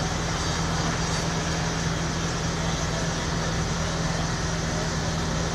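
Steady drone of running engines, a constant low hum under an even wash of street noise.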